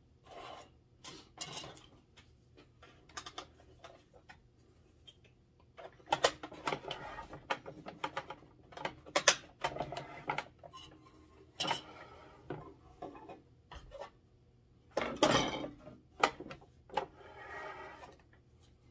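Irregular clicks, taps and light scraping of hard plastic toy parts being handled: the large Razor Crest starship model and its loose snap-on hull panels being moved about on a tabletop, with busier clatter about six seconds in and again about fifteen seconds in.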